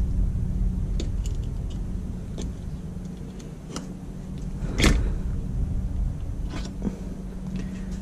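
Light clicks and knocks of metal transmission parts being handled on a steel workbench, the strongest knock a little under five seconds in, over a steady low hum.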